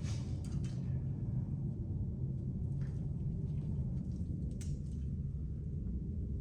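Steady low rumble of shop background noise, with a few faint clicks as wiring harness pieces and plastic connectors are handled.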